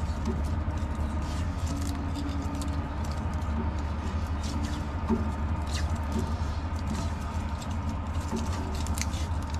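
Electrical tape being pulled off the roll and wound around a wiring harness: irregular small scratchy crackles and rustles, over a steady low hum.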